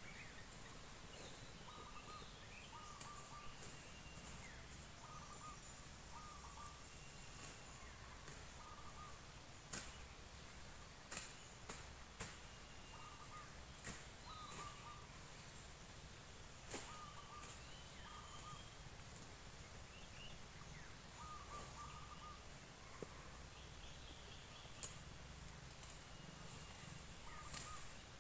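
Faint birdsong: one bird repeats a short call, often doubled, every second or two, with higher chirps and whistles from other birds between. A few sharp clicks or snaps stand out here and there.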